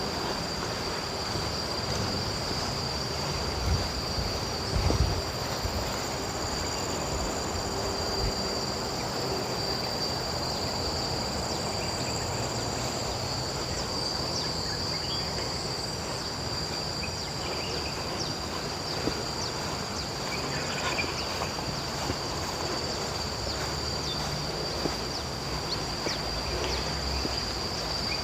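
Insects keep up a steady high-pitched drone, over a low wind rumble on the microphone with a few louder bumps about four to five seconds in.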